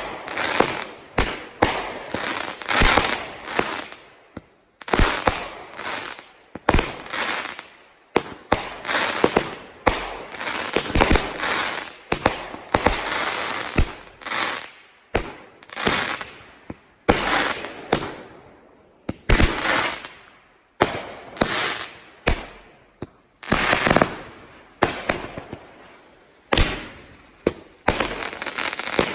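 Consumer aerial fireworks going off in quick, irregular succession: repeated sharp booms, each trailing off, with crackling between them.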